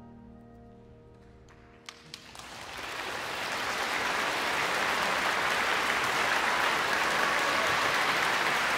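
The final chord of cello and piano dying away, then a couple of first claps about two seconds in, and audience applause that swells and holds steady.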